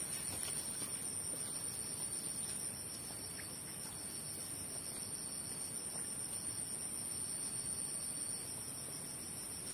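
Insects droning in a steady, shrill, high-pitched buzz held at one pitch.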